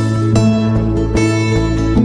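Background music led by strummed acoustic guitar chords over a steady bass, with a new chord about every second.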